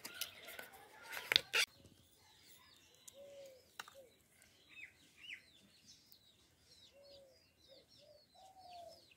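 Birds calling, with quick high chirps and lower, repeated falling calls. In the first second or two there are a few crisp snaps and rustles as banana-flower florets are picked apart by hand.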